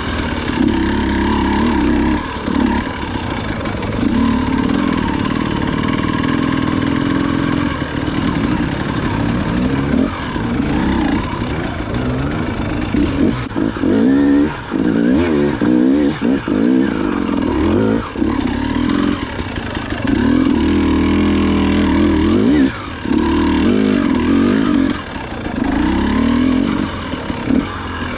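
Dirt bike engine ridden along a rough trail, the throttle opened and closed over and over so the engine note rises and falls, with a few brief drops when the throttle is shut.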